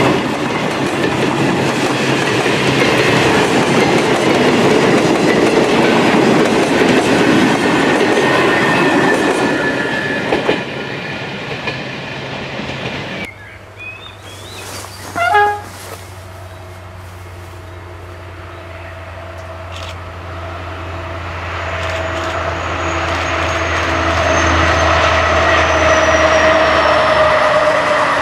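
Passenger train running close by, its carriage wheels clattering over the rails. After an abrupt cut, a short sharp sound about 15 seconds in, then a second, diesel-hauled train approaching from a distance, its engine and wheel noise growing steadily louder.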